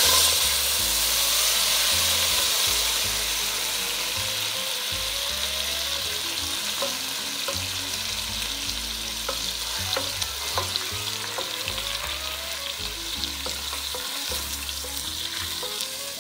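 Butter and olive oil sizzling in a stainless steel pot as cream goes in. The sizzle is loudest at first and slowly settles, while a wooden spoon stirs and clicks against the pot.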